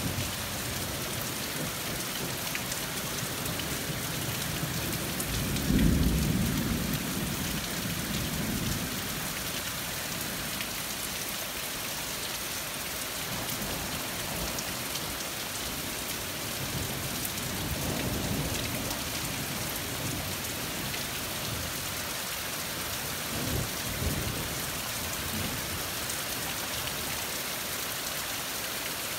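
Steady heavy rain with rolling thunder. The loudest peal comes about six seconds in and fades over a few seconds, and softer rumbles follow twice later on.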